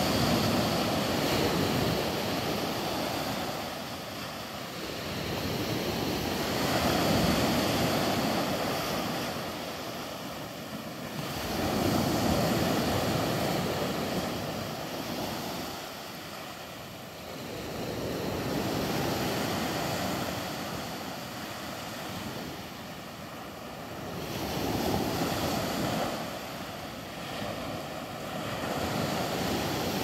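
Small sea waves breaking on a sandy beach and washing around rocks, the surf swelling and fading about every five to six seconds.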